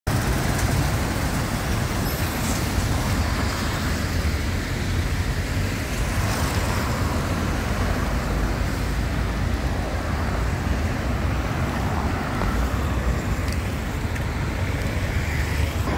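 Road traffic: cars and a truck passing on a city avenue, a steady rumble of engines and tyres.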